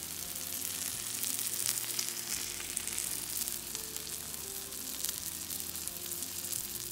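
A grilled cheese sandwich frying in a pan, its mayonnaise-spread bread sizzling steadily with many small crackles in the bubbling fat.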